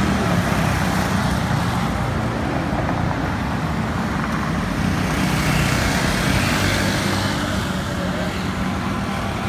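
Road traffic noise: a steady rumble of cars and other vehicles on a city boulevard, with one vehicle passing more loudly about halfway through.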